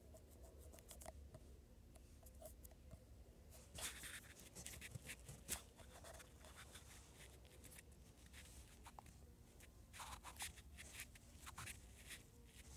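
Faint taps and short scratchy strokes on a phone's touchscreen during finger drawing, picked up by the phone's own microphone. The strokes are busiest about four and ten seconds in, with one sharper click in between, over a low steady hum.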